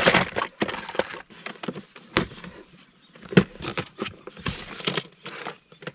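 A plastic toolbox full of tools being handled: tools and packets rattling and rustling with many irregular clicks, and a couple of sharper knocks as the lid is shut and latched.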